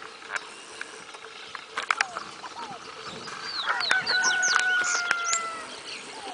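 A rooster crows once, a long call of about two seconds in the middle that is the loudest sound, over quick high chirps of small birds. A few sharp clicks come about two seconds in.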